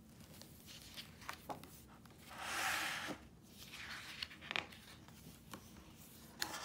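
Pages of a hardcover picture book being turned by hand: a paper swish about two and a half seconds in, with small taps and rustles of fingers on the pages around it.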